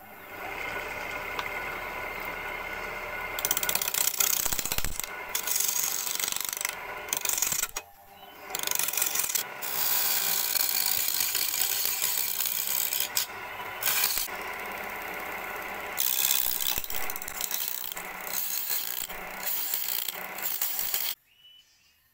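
Wood lathe running with a turning gouge cutting into a spinning, out-of-round wood blank: a rough, scraping cut over the motor's steady hum, broken by short pauses as the blank is trued round. It cuts off suddenly about a second before the end.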